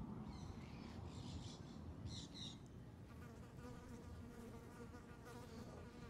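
A flying insect buzzing close by, a steady hum that comes in about three seconds in and carries on, with a few high chirps in the first half.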